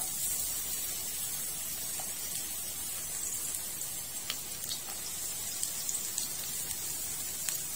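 Chopped garlic sizzling in hot oil in a frying pan: a steady hiss that starts suddenly as the garlic drops in, with scattered small pops and crackles.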